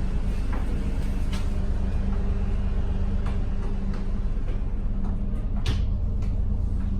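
Steady low engine drone heard from inside a moving vehicle, with scattered clicks and rattles. The sharpest click comes near the end.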